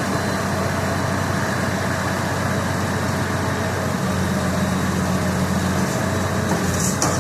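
Thai Seng 'Chao Phayu' rice combine harvester running steadily while its working system is demonstrated. The engine note firms up about halfway through, and there is a short rattle near the end.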